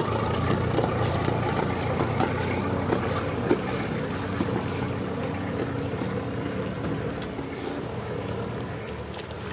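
Motor cruiser's engine running at low speed, a steady low hum that grows a little fainter toward the end as the boat moves away.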